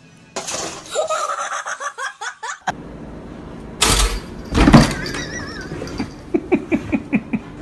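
People laughing in short choppy bursts, with two loud thumps about four and five seconds in and a quick run of laughter near the end.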